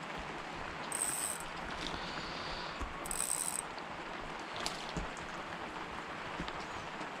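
Fishing reel giving two short, high-pitched ratcheting buzzes about two seconds apart, over a steady hiss.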